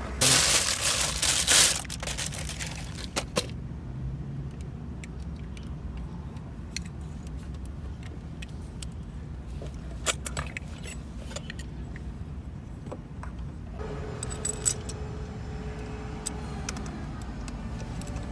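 Small metal parts and tools clinking and rattling as they are handled, in scattered sharp clicks with a cluster about ten seconds in. A loud noisy burst fills the first two seconds.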